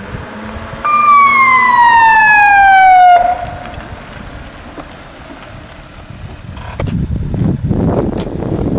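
A rescue van's siren gives one falling wail, starting about a second in and cutting off suddenly about two seconds later. A rough rumbling noise rises over the last two seconds.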